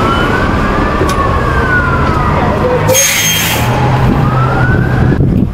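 An emergency vehicle's siren wailing, its pitch slowly rising and falling, over steady street traffic rumble. A short hiss sounds about three seconds in, and the siren cuts off shortly before the end.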